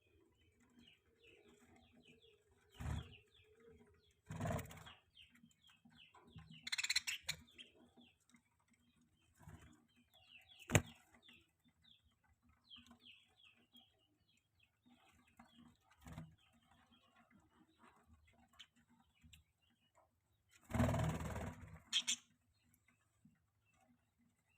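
Budgies chattering softly in a continuous stream of quick, faint chirps. A few louder rustling noises break in, the longest about 21 seconds in, and there is a sharp click about 11 seconds in.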